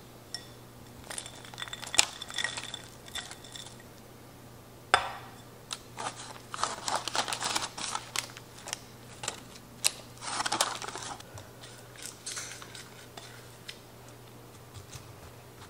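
Frozen, sugar-coated blueberries dropped by hand into a parchment-lined glass baking dish: scattered light clicks and patters, with the parchment paper crinkling. Near the end a spatula scrapes out a glass bowl.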